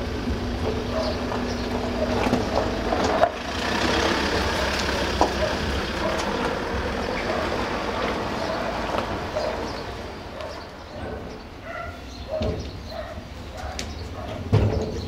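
Rail vehicle running: steady mechanical noise with a steady hum for the first three seconds and a sharp clack about three seconds in, easing off a few seconds before the end.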